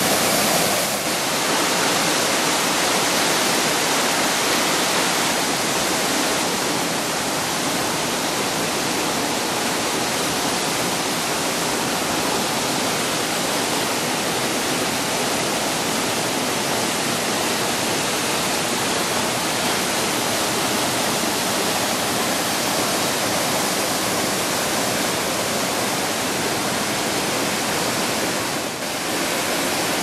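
Rushing water of a mountain stream tumbling over rocks and small cascades, a steady rush with a brief dip near the end.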